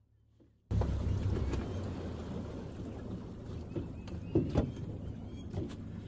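Boat under way at low speed: a steady low motor rumble with wind and water noise, cutting in abruptly about a second in after near silence, with a few short knocks against the hull.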